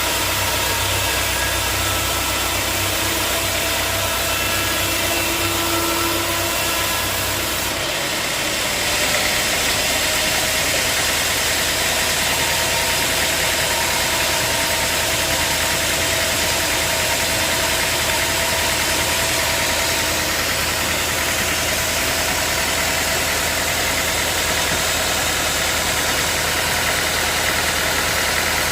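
Sawmill machinery running steadily: an engine with saw noise. About eight seconds in, a deep hum drops out and the sound changes, then carries on steadily.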